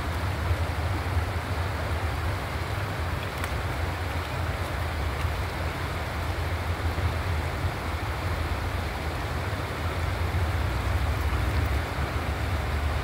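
Shallow river water rushing over rocks, a steady even wash, with a low rumble of wind on the microphone underneath.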